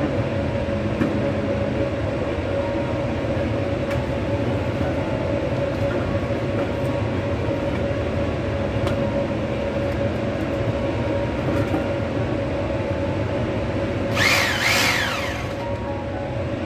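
Steady, loud mechanical rumble with a constant hum, and about two seconds before the end a brief high metallic squeal that falls in pitch.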